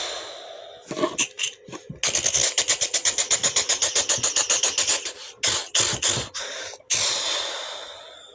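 A person making sound effects with the mouth: a hiss, a few sharp clicks, then a rapid even run of about ten pulses a second for some three seconds, like an imitated engine or machine gun, then several single pops and a hiss that fades away.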